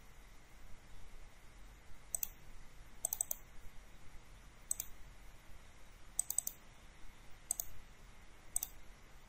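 Computer mouse clicking about eight times at uneven intervals: single clicks and two quick double clicks.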